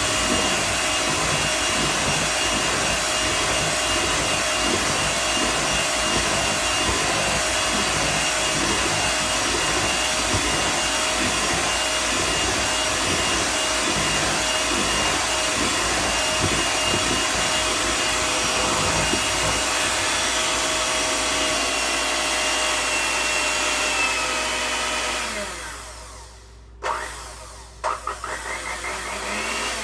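Electric stand mixer running steadily at speed, beating butter and powdered sugar into frosting. About 25 seconds in it winds down; two clicks follow, then the motor briefly spins up again near the end.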